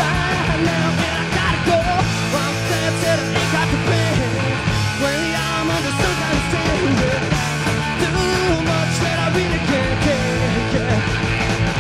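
Live punk rock band playing loudly: electric guitar, bass and drums, recorded in concert.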